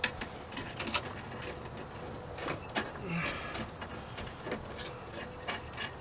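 Scattered light metallic clicks and taps of a strut-top mount bolt being threaded in by hand, metal on metal, while the new strut is held in place.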